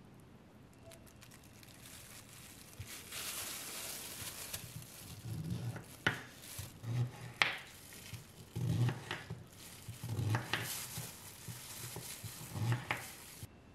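Kitchen knife cutting through a beetroot on a bamboo cutting board: repeated cuts, each ending in a sharp knock of the blade on the wood, roughly one a second from about halfway in, with the crinkle of a plastic glove.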